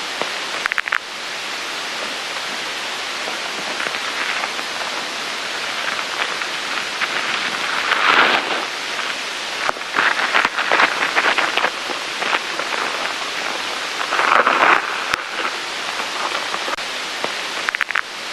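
A steady rushing hiss like falling rain that swells louder three times, with a few faint clicks near the start and the end.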